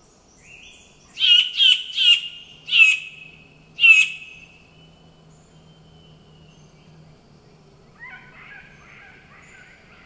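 Vogelkop superb bird-of-paradise calling: five loud, sharp calls in quick succession over about three seconds. A softer jumble of chattering notes follows near the end.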